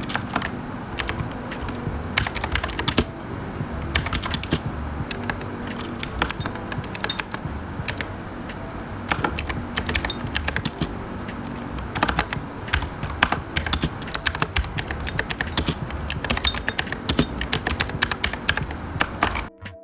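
Armageddon MKA-3C hotswap mechanical keyboard being typed on in a sound test: quick runs of key clicks and clacks, with brief pauses between runs.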